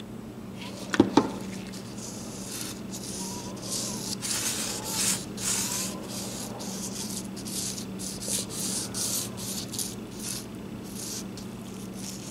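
Gloved fingers rubbing over an epoxy-cast corn-cob knife handle: a run of uneven rubbing strokes, after two sharp knocks about a second in.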